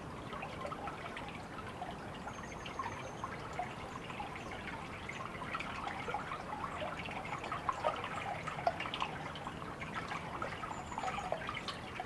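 Water trickling and dripping: a steady run of many small, irregular drips and splashes.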